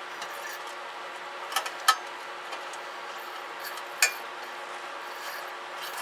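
A few sharp metallic clicks and clinks, the loudest about a second and a half, two seconds and four seconds in, from hands working among the wafer switches and parts inside the metal chassis of a Johnson Valiant tube transmitter, over a steady faint hiss.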